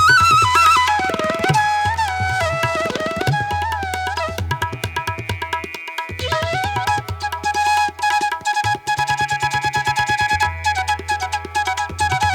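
Background music in an Indian classical style: a gliding melody over a steady low drone with quick tabla-like drum strokes.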